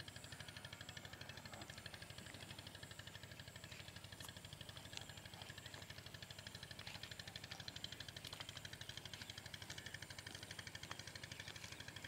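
Faint, steady running of an engine with a fast, even pulse, and a few scattered clicks.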